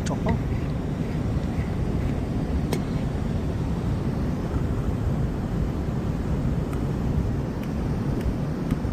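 Fast-flowing waterfall rushing steadily, a deep even roar, with a few light clicks now and then.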